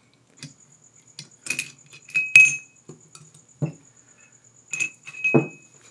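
Steel gears, shaft and a hand tool from a milling machine head clinking and knocking together as they are handled: a string of sharp metallic clinks, several ringing briefly, the loudest about two and a half seconds in, with a couple of duller knocks later.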